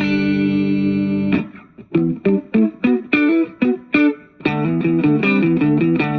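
Electric guitar played through an ADA Pitchtraq pitch-shifter effect: a held chord rings for just over a second, then short separate plucked notes with gaps between them, then a steady run of notes from about four seconds in.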